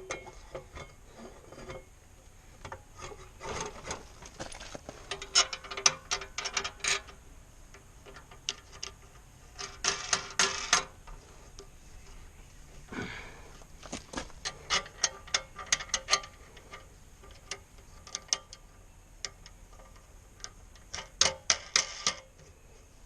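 Bursts of rapid mechanical clicking, each a second or two long, from hand work on the power washer's parts during assembly.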